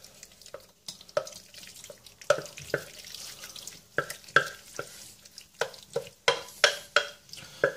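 Shell pasta with minced meat in tomato sauce being spooned out of a metal pot into a glass baking dish. A spoon scrapes and knocks against the pot in irregular short clicks and taps, with soft plops of pasta landing in the dish.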